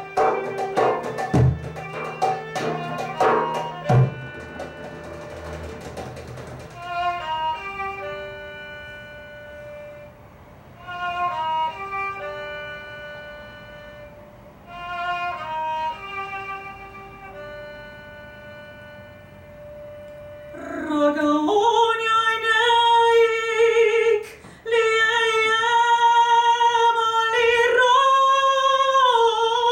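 Arabic ensemble music: derbake (goblet drum) strokes for the first few seconds, then unaccompanied kamancheh (spike fiddle) phrases with pauses between them. About twenty seconds in, a soprano voice enters singing a sustained, ornamented melodic line that carries on to the end.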